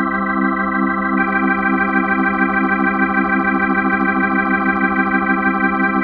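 Digital organ sound from a software keyboard holding a C major chord (G3, C4, E4), with a fast, even pulsing tremolo; a higher G joins the chord about a second in.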